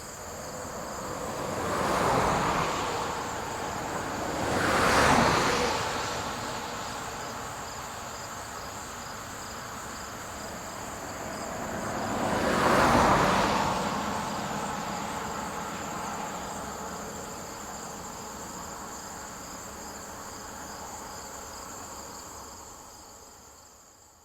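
Vehicles passing by on a rural road, three passes that each swell up and die away, over a steady high chirring of crickets; the whole fades out at the end.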